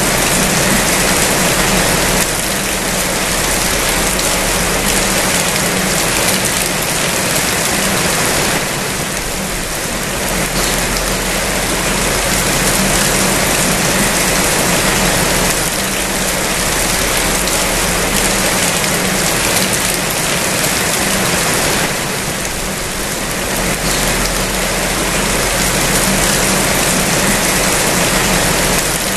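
Steady rain falling, a dense, even hiss that eases slightly twice.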